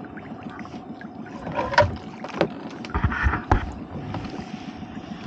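Water splashing and dripping as a lobster pot is hauled out of the sea against the side of a small boat, with scattered knocks of the pot and rope on the hull. The loudest knock comes a little under two seconds in, and a short wash of water with low thumps about three seconds in.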